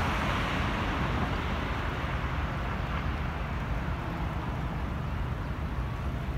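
Road traffic noise: a car's tyre noise swells at the start and slowly fades as it passes, over a steady low rumble.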